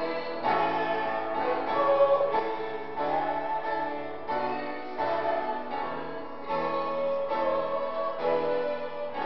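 A hymn tune played on a keyboard, sustained chords changing every second or so.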